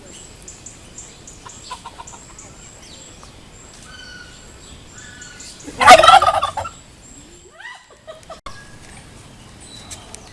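Courting male turkey gobbling once, a loud rapid rattling call lasting about a second, about six seconds in.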